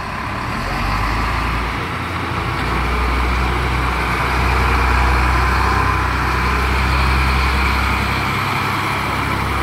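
Heavy truck's diesel engine pulling an empty low-bed trailer forward at low speed, with a steady deep hum that grows louder about three seconds in.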